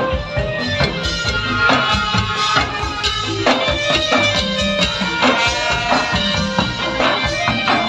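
Thai brass band (trae wong) playing lively dance music: horns holding melody lines over a steady drum beat.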